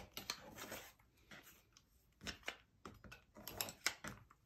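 Rotary cutter rolling along the edge of an acrylic quilting ruler, slicing through a fabric block on a cutting mat, then a few light clicks and taps as the tools are handled.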